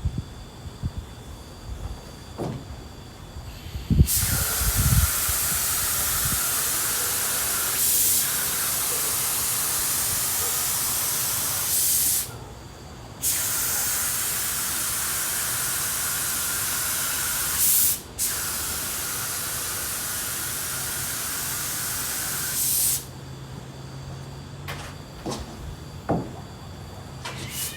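Adhesion promoter being sprayed in long, steady, hissing passes. The spray starts about four seconds in, is broken by a pause of about a second and a brief cut, and stops a few seconds before the end. A few knocks of handling come before and after it.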